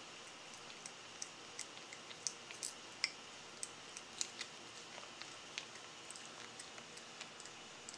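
Siamese cat licking a soft paste treat from a squeeze tube: a run of faint, irregular wet tongue clicks and mouth smacks over a steady hiss.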